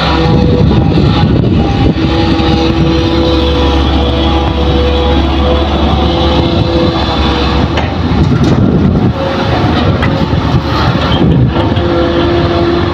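Hitachi hydraulic excavator's diesel engine running under load with a steady whine over it, as the machine digs and loads soil into a dump truck.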